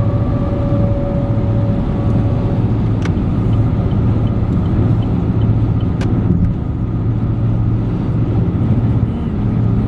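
Steady road and engine noise of a moving car, a continuous low hum, with a thin tone that stops about two and a half seconds in and two light clicks.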